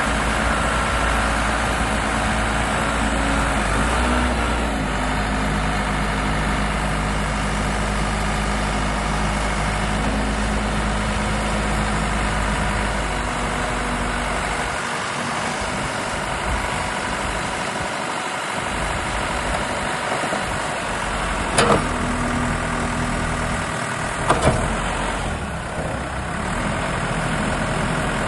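Case 580 Super L backhoe's four-cylinder diesel engine running steadily at idle, its note shifting a little now and then. Two sharp knocks come about three-quarters of the way through.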